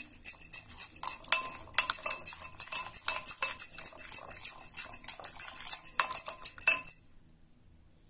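Metal spoon stirring a thick yogurt-and-spice marinade in a glass bowl, clinking and scraping against the glass in rapid, even strokes that stop abruptly about seven seconds in.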